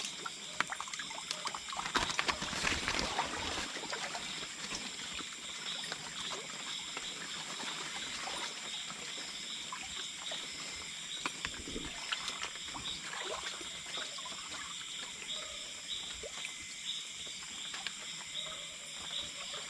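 Water trickling and splashing, with scattered small clicks and knocks, over a steady high-pitched hum and a faint chirp pulsing about twice a second.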